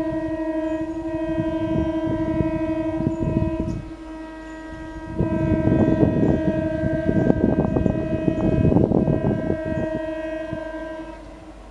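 An Indian Railways electric multiple-unit local train sounding a long, steady horn that dips briefly about four seconds in and stops near the end, while its wheels clatter over the rails and points as it comes in; the clatter is loudest in the middle.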